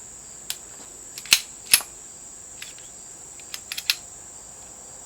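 Several short, sharp clicks of a firearm being handled while its magazine is not fully seated, the loudest two a little over a second in and a quick cluster near four seconds. Under them runs a steady, high-pitched chorus of crickets.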